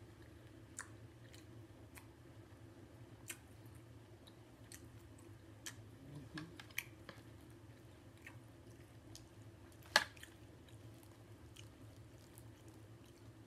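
Mouth chewing a crunchy hard taco shell, with scattered crisp crunches, over a steady low hum. One sharper click comes about ten seconds in.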